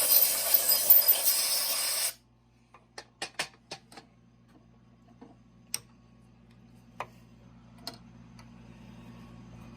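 Compressed-air blow gun hissing loudly for about two seconds and cutting off sharply, then a scattering of light metallic clicks and taps from hand tools.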